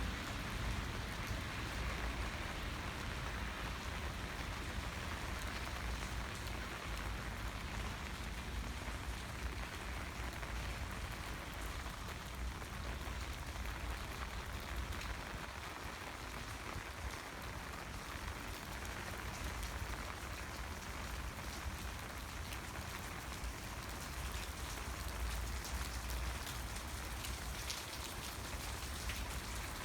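Steady rain falling: a continuous hiss with many small drop ticks, over a low rumble.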